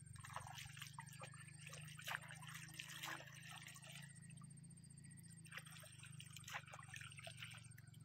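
Faint splashing, trickling and dripping of shallow water scooped and poured by hand. It comes in two spells, one in the first three seconds and another from about five and a half to seven and a half seconds in, over a steady low hum.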